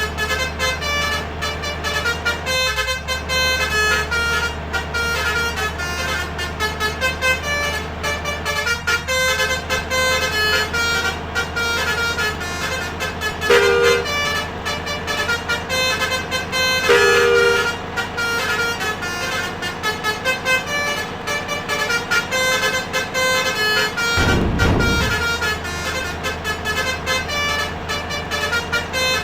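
Indonesian 'om telolet' basuri trumpet horn playing fast multi-note tunes over the steady drone of engine and road. A brief low rushing sound comes near the end.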